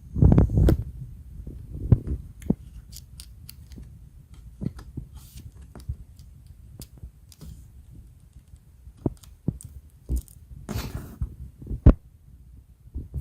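Hands and tools working on a laptop being taken apart: irregular small clicks and taps of plastic and metal with low knocks, and a short scrape near the end.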